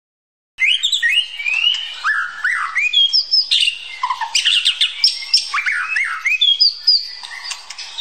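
White-rumped shama singing: a fast, unbroken run of varied whistles, rising and falling slurs and chattering notes, starting about half a second in.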